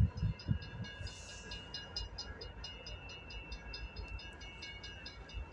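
Railroad grade-crossing warning bell ringing in a quick, even rhythm of about four or five strikes a second, starting about a second in. Wind buffets the microphone at the start.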